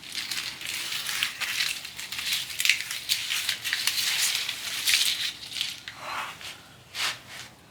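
Truck wiring harness being handled: dense crinkling and rustling with many small clicks. It thins after about six seconds to a few separate clicks.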